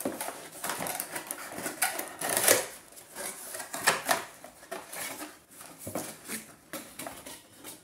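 Cardboard packaging being handled: the flaps of a cardboard box insert pulled open and folded back by hand, with irregular scraping, rustling and small knocks, loudest about two and a half and four seconds in.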